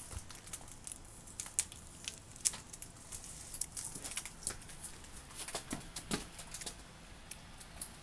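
Someone chewing crunchy rolled corn tortilla chips (Takis) close to the microphone: irregular crisp crunches and clicks.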